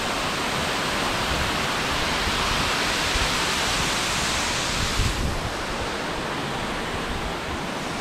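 Powerscourt Waterfall's water pouring down onto the rocks close by, a loud, steady rushing hiss that eases slightly about five seconds in. Wind buffets the microphone with an uneven low rumble.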